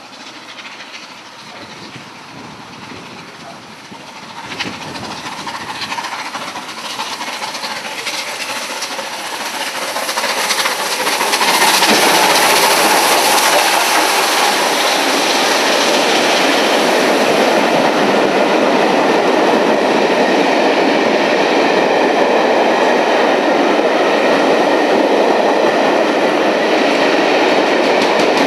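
Southern Railway Battle of Britain class steam locomotive 34067 'Tangmere', a three-cylinder Bulleid light Pacific, approaching at speed and growing steadily louder until it passes close about twelve seconds in. Its train of coaches then rushes past with a loud, steady clatter of wheels on the rails.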